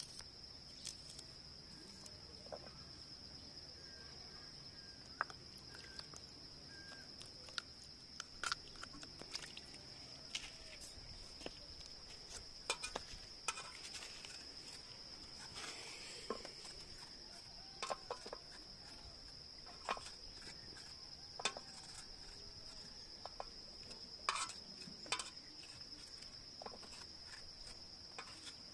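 Insects trilling steadily at one high pitch, with scattered sharp clicks and knocks throughout.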